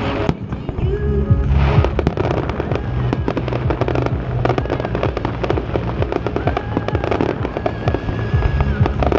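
Fireworks display: shells bursting in a dense run of crackling pops and bangs that thickens about two seconds in, with music playing underneath.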